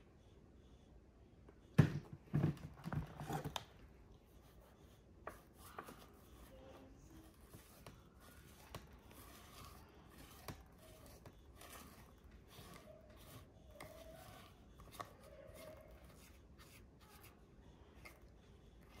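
Faint rubbing and scratching of a cotton ball wiped over glossy patent leather shoes to take off excess dye, with scattered small clicks of handling. A short burst of louder handling noise comes about two seconds in.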